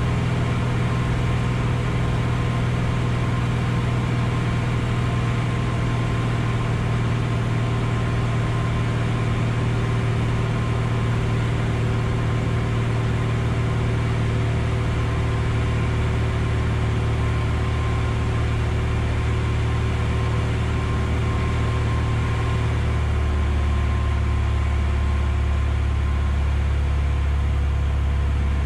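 Piper Arrow's piston engine and propeller droning steadily, heard inside the cabin on final approach. About 23 s in, the engine note drops to a lower pitch as power is pulled back.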